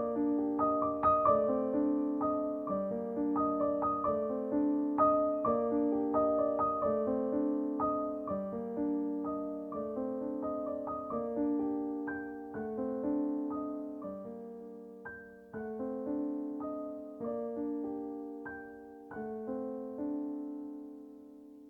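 Background music: a gentle piano piece of repeated broken chords, fading out near the end.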